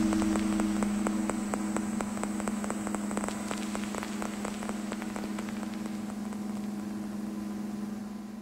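Electronic noise drone from a drone synth run through Kaoss Pad effects: a steady low drone tone under a fast, uneven crackle of clicks. The clicks thin out after about six seconds and the whole sound slowly fades down.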